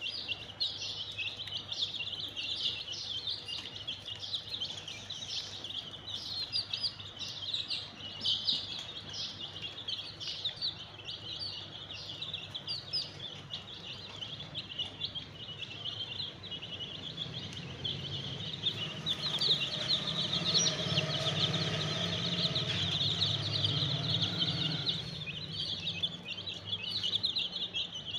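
A flock of chicken chicks peeping continuously, many short high peeps overlapping. For several seconds past the middle a low hum rises under them and then fades.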